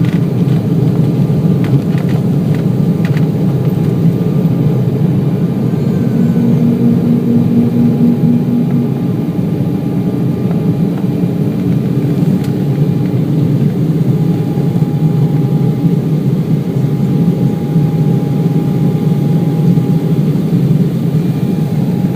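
Embraer 190 jet in its climb after takeoff: a steady low rush of engine and air noise with no letting up, and a few faint clicks a few seconds in.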